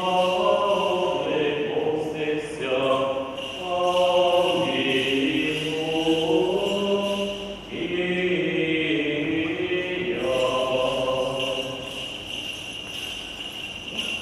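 Voices chanting an Orthodox liturgical hymn in long, slowly gliding notes, fading a little near the end.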